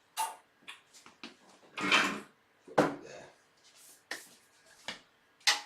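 Desktop PC parts being handled and set down: about six sharp knocks and clunks with short gaps between them, one near the middle longer and scraping.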